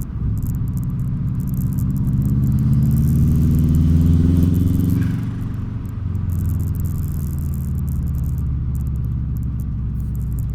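Subaru Impreza GC8's turbocharged flat-four engine revving up over about four seconds, then the throttle is let off about five seconds in with turbo flutter, and it settles back to a steady lower run.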